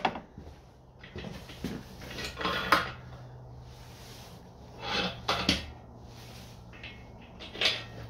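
Metal clunks and knocks as a Rover V8 engine block, crankshaft and pistons fitted, is turned over on a red engine stand, coming a second or two apart, over a steady low hum.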